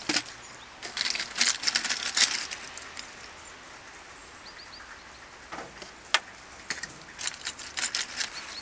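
Scattered sharp clicks and short rustles against a steady outdoor hiss, with a quick run of four faint high chirps about four and a half seconds in.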